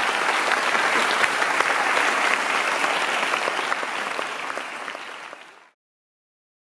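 Audience applauding, a dense patter of many hands clapping. It fades and then cuts off about five and a half seconds in.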